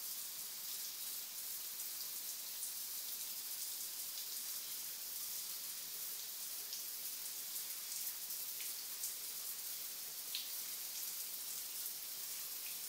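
Shower running: a steady hiss of water spraying and splashing in the bathtub, with a few faint drips.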